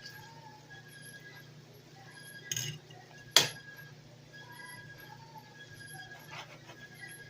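Two sharp clinks about a second apart, the second much louder, like a kitchen utensil striking cookware, over a faint steady hum.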